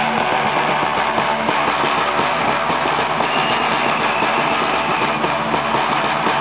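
Large bass drums of a Romanian bear-dance troupe beaten in steady, fast drumming.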